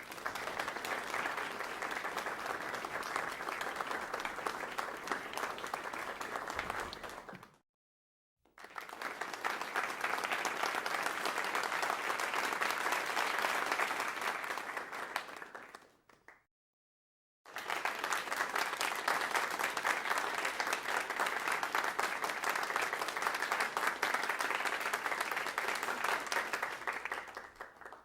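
Crowd applause, many people clapping together, in three separate bursts with short silences between them. Each burst lasts several seconds; the second and third fade out at their ends.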